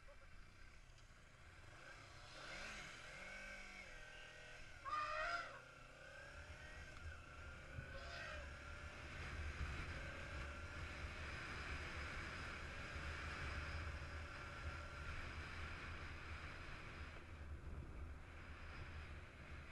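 Kawasaki Ninja sport motorcycle engine heard from the rider's helmet, rising in pitch as it accelerates, loudest about five seconds in. After that it settles into a steady running note under a low rush of wind on the microphone at speed.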